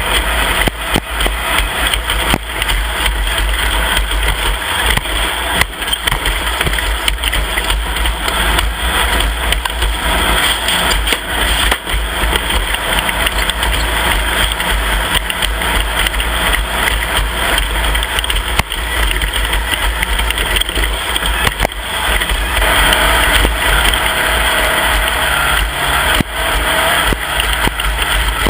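Off-road race vehicle under way: engine noise blended with a loud, steady rush and a few sharp knocks.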